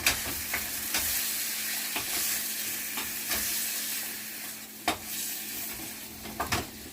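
Seasoned chicken pieces sizzling as they fry in olive oil in a pot, with a spoon stirring and knocking against the pot several times; the sharpest knocks come about five seconds in and as a pair near the end.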